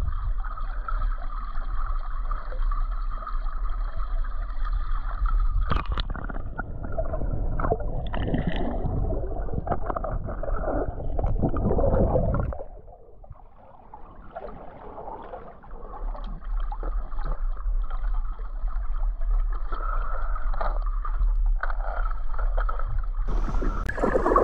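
Swimming-pool water sloshing and gurgling against a camera at the waterline, over a steady hum. It goes muffled and quieter for a few seconds around the middle while the camera is under water, and there is a sharp knock about six seconds in.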